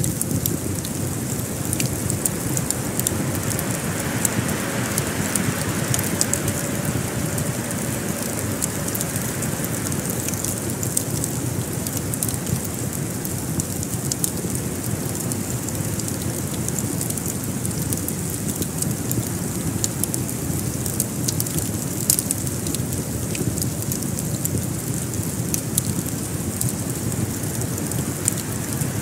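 Fireplace fire crackling: frequent small sharp pops and snaps over a steady low rushing noise.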